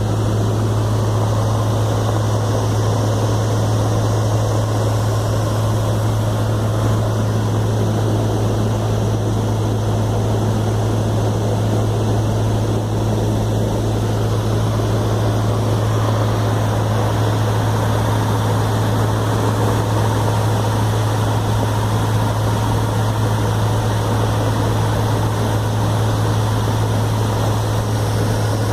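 Cessna 150's four-cylinder Continental O-200 engine and propeller running at steady power, a constant loud drone that does not change.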